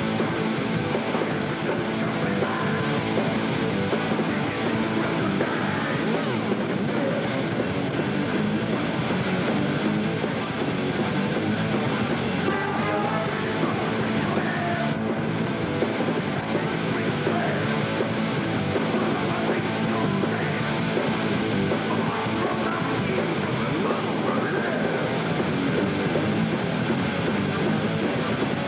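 Rock music with guitar playing steadily throughout.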